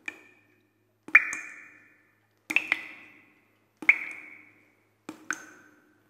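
Water drops falling one after another, each a quick double click followed by a ringing plink that fades away. Five drops come at a fairly even pace, about one every second and a quarter, with a slightly different pitch on each.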